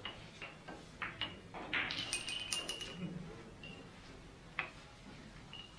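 Billiard balls clicking against each other during a keglebillard shot: a few single clicks, then a quick clattering run of hard clicks with a bright ring about two seconds in, and one more click later.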